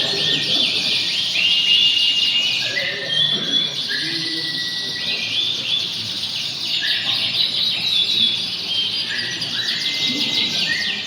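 Several domestic canaries singing at once in competition. The song is dense and overlapping, with fast trills and held whistled notes throughout.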